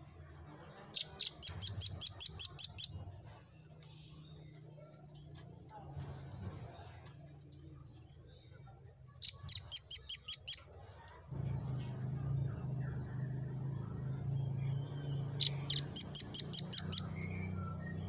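Velvet-fronted nuthatch singing: three bouts of rapid, sharp, high-pitched notes at about five a second, each bout lasting about two seconds. A low hum comes in about eleven seconds in.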